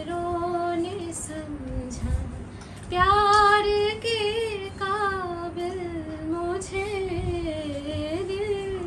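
A woman singing alone without accompaniment: a slow melody of long held notes that bend in pitch, louder from about three seconds in.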